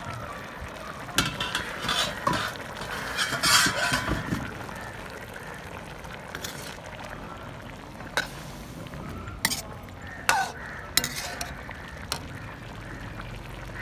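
A steel ladle stirring half-cooked chicken in watery tomato in an iron karahi, clinking sharply against the wok again and again over a steady simmer.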